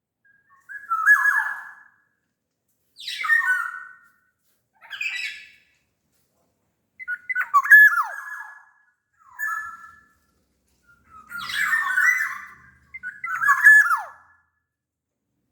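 Black-naped oriole (kepodang) singing: seven short whistled phrases about every second and a half to two seconds, several ending in a falling slur. They are mixed with a few harsher, scratchier calls.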